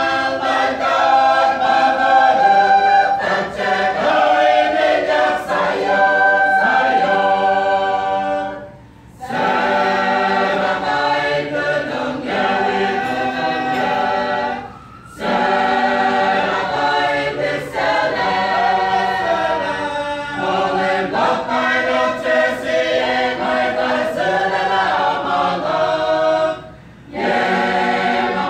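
Mixed choir of women's, girls' and men's voices singing unaccompanied, the phrases broken by three short pauses for breath.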